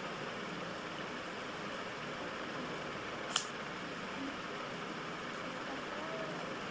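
Scissors cutting a sheet of cardboard, with one sharp snip about halfway through, over a steady hiss of room noise.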